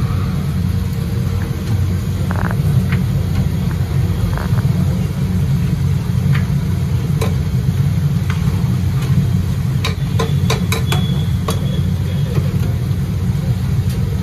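Steady low roar of a high-pressure gas burner heating a large iron tawa, with faint sizzling on top. About ten seconds in comes a quick run of sharp metal clinks.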